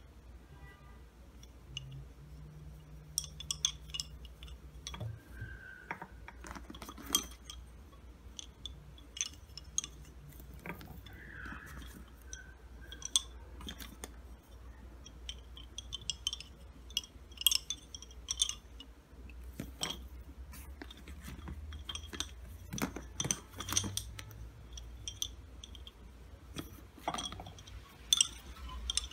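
Wooden lace bobbins clicking against one another in irregular clusters as pairs are crossed and twisted in bobbin lace making.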